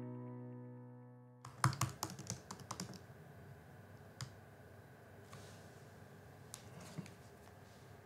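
Background music fading out over the first second and a half, then faint typing on a laptop keyboard: a quick run of key clicks, followed by a few scattered taps.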